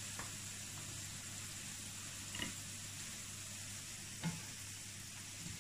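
Homemade fries frying in a pan of hot oil: a steady, faint sizzle, with a couple of soft taps along the way.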